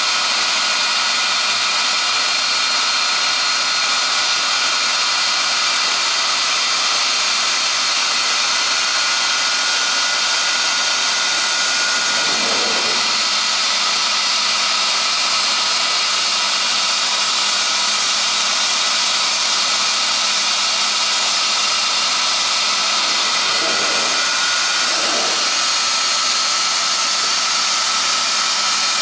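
CNC router spindle running at high speed while trimming a thermoformed plastic part: a steady high whine over a hiss, with brief lower sweeps about halfway through and again near the end.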